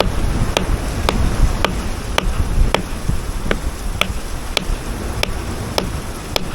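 Hammer tapping a hard rock nodule to split it open: a steady series of about eleven sharp taps, a little under two a second.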